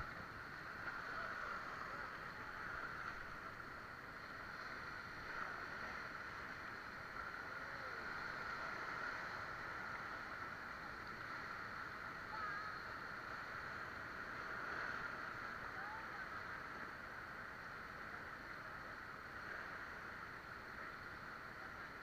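Steady rush of fast river water around an inflatable raft running whitewater rapids, with faint voices now and then.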